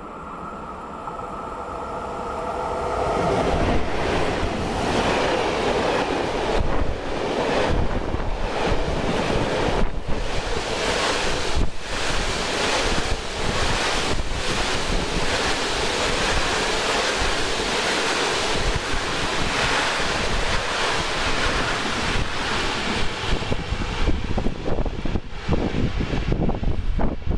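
Freight train of hopper wagons passing close by: a steady rush of wheels on rail that builds over the first few seconds, with many sharp clicks.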